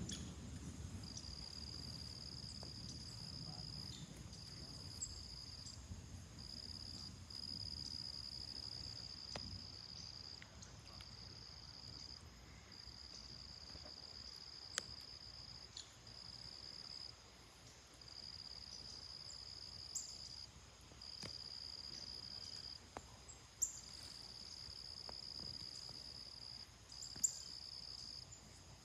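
A steady high insect trill in phrases of one to three seconds with short breaks. Distant thunder rumbles low and fades over the first few seconds, and a few sharp clicks stand out later.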